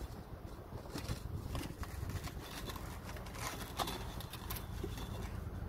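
Scattered light knocks and clinks as a brick hod loaded with perforated clay bricks is hoisted up onto a shoulder, over a steady low rumble.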